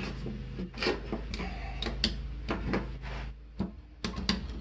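Irregular clicks and short scrapes of a hand tool on the metal parts of a Bostitch framing nailer as its bolts are tightened, over a steady low hum.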